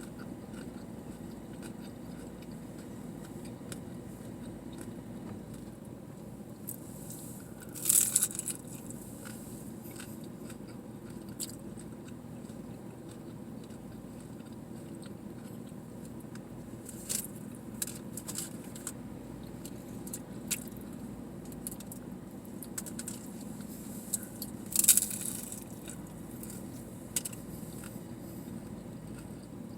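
Close-up eating of tacos: two loud crunchy bites, about eight seconds in and again about twenty-five seconds in, with small clicks and chewing noises in between, over a steady low hum.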